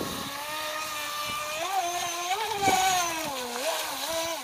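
Fei Lun FT012 RC racing boat's water-cooled brushless motor whining as the boat speeds across the water, its pitch climbing and then dipping as the throttle and course change.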